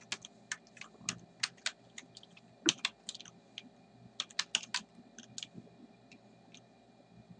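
Computer keyboard typing: irregular key clicks, some in quick runs, thinning out and stopping near the end.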